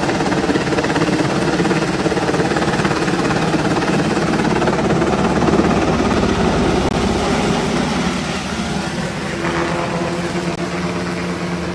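Military helicopter hovering low while attempting to land, its rotor and turbine noise loud and steady. The level eases slightly in the last few seconds.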